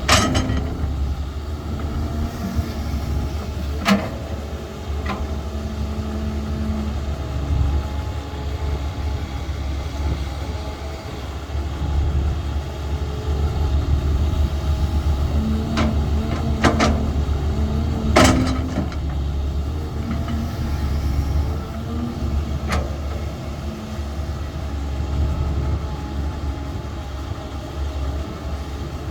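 CAT 320 hydraulic excavator's diesel engine running steadily under load, with a hum that rises and falls as the hydraulics work. Several sharp clanks stand out over it, a cluster of them about two thirds of the way in.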